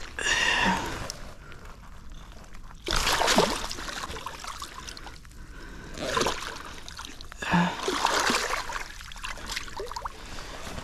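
Wels catfish flapping and splashing in the shallow water at the bank's edge, in four separate bursts a few seconds apart.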